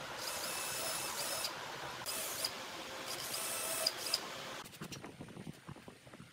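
Cordless drill running in three short bursts with a high motor whine as it bores into a pine table leg. It then stops, and a few light clicks and taps follow.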